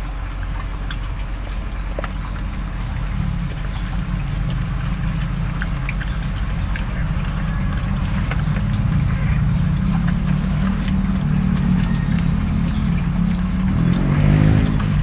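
Low, steady motor-like rumble that grows louder and peaks near the end.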